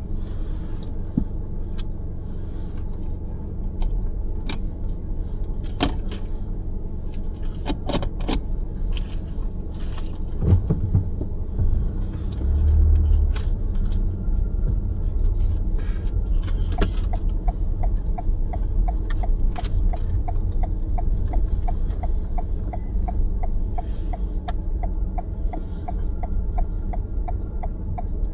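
Car cabin road noise: a steady low rumble from the tyres and engine, with scattered small clicks and rattles. From a little past halfway, a turn-signal indicator ticks evenly, about two to three times a second.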